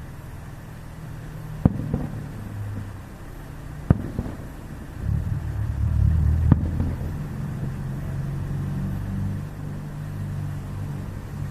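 Three sharp fireworks bangs a couple of seconds apart, followed by a low rumbling roll, over a steady low hum.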